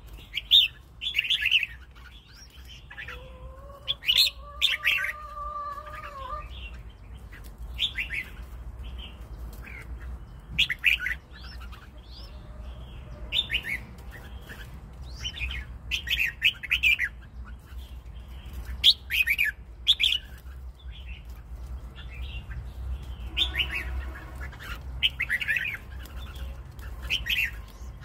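Red-whiskered bulbul singing: short, bright whistled phrases repeated every second or two with brief pauses between them.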